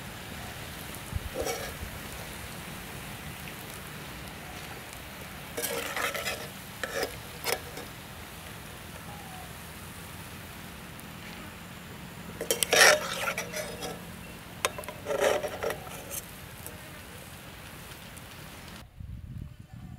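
Brinjal slices deep-frying in oil in a metal wok, a steady sizzle, with a metal ladle scraping and clinking against the pan in several bursts as the fried pieces are lifted out. The loudest clatter comes about two-thirds through, and the sizzle cuts off shortly before the end.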